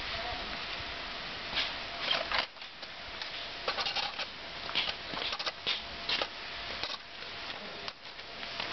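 Metal poker scraping and clinking inside a small metal bucket stove as its fire is poked: a run of short, irregular scrapes and knocks over a steady background hiss.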